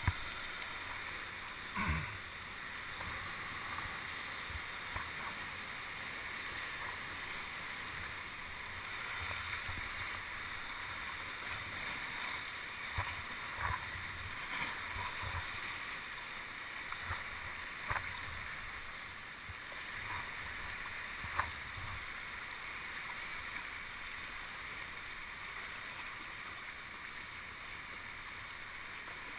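Sea water lapping and splashing around a kayak: a steady wash of moving water with a few short sharp splashes or knocks now and then.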